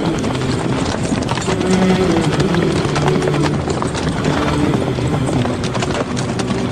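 Many horses' hooves clattering, a dense run of hoof strikes, over low chanting voices.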